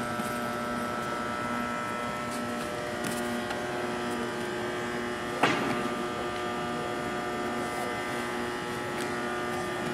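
Steady electrical buzz made of several held tones, the lowest one cutting in and out, with a single sharp thump about halfway through.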